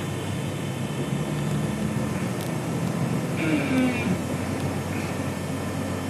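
Steady ride noise of a moving road vehicle heard from inside the cabin: a low engine-and-tyre drone. A brief higher-pitched sound cuts in a little past halfway.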